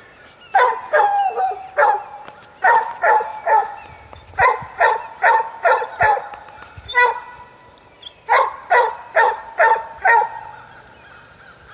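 Bay dog barking at a cornered wild hog, holding it at bay: quick runs of about four to six barks with short pauses between, stopping about ten seconds in.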